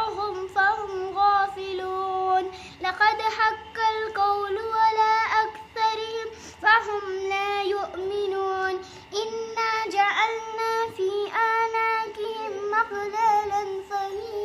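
A young girl's voice chanting Quran recitation in Arabic, in a melodic tajweed style. It moves in phrases of a few seconds, holding high, steady notes with small turns in pitch and brief pauses between phrases.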